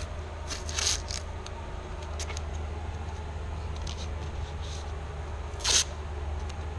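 Paper target and tape being handled: rustling and short rips of tape pulled and pressed down, the loudest rip about two thirds of the way through, over a steady low hum.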